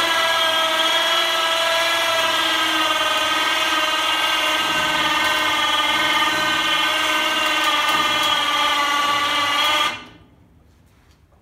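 Electric ATV winch from Harbor Freight, driven off a battery by remote control, running under load as it hoists a truck bed: a steady whine of motor and gears that cuts off sharply about ten seconds in.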